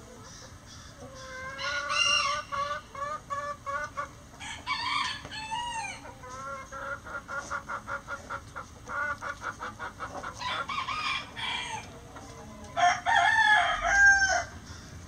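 Chickens clucking in quick rhythmic runs, broken by roosters crowing several times, the loudest crow coming near the end.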